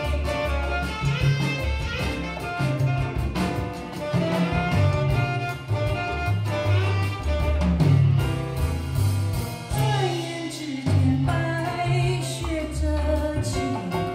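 Music played back through Giussani Research Delta Butterfly One loudspeakers driven by a Sonic Scientific Phyllis ONE amplifier, heard in the listening room. It has a deep bass line stepping from note to note and melodic lines above it, with some sliding pitches about ten seconds in.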